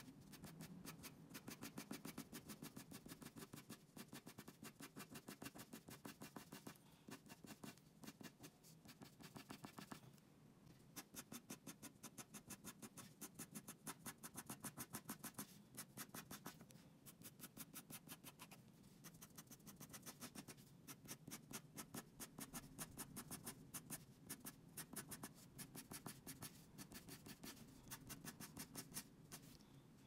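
Colored pencil scratching on paper in quick, rhythmic shading strokes, several a second. The strokes are faint and pause briefly a few times.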